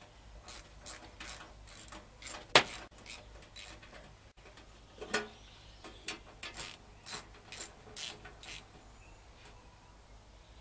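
Irregular short metallic clicks and scrapes of screws being undone from the pellet boiler's cover panel, with one sharp knock about two and a half seconds in.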